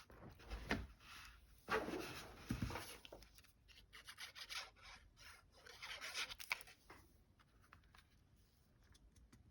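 Paper and card stock being handled: intermittent soft rustling and rubbing with a few light taps as pieces are pressed into place, quieter toward the end.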